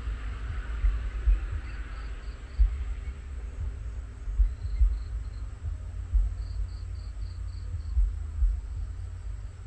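Insects chirping outdoors at dusk: quick runs of about five high chirps, repeated several times. Under them, wind rumbles unevenly on the microphone, and its gusts are the loudest part.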